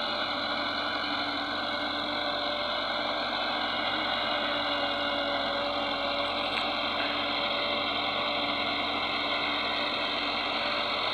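Massey Ferguson 385 diesel tractor engine running steadily at an even pitch while pulling a laser land leveller, under light load with little soil in the leveller.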